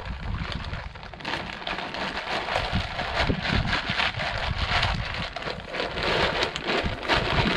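Shelled deer corn pouring from a bag and pattering onto dry grass and ground, a dense rain-like spray of kernels that starts about a second in and keeps going as the corn is scattered.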